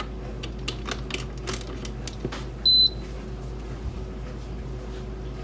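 Instant Pot electric pressure cooker giving one short, high beep about two and a half seconds in as it is plugged in and powers on, with a few light clicks around it.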